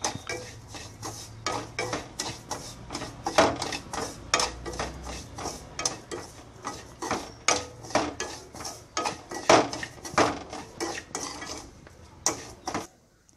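A spoon stirring grated coconut and sugar in ghee, scraping and clinking against the metal pan in quick, irregular strokes, several a second.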